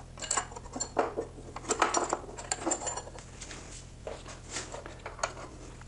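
Short clicks, clinks and scrapes of metal and plastic parts as a feed roller and its bushing blocks are handled and seated in a DeWalt DW735 thickness planer, busiest in the first three seconds and thinning out after. A faint steady low hum runs underneath.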